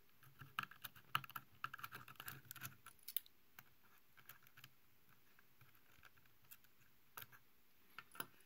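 Faint, irregular clicking and light scraping of a small screwdriver turning out the screw that holds the USB bridge board to the hard drive. The clicks come thickly for the first three seconds, then thin out to a few scattered ticks.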